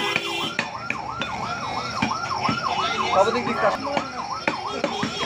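A yelping siren, its pitch sweeping up and down about three times a second, with scattered knocks of a cleaver on a wooden chopping block.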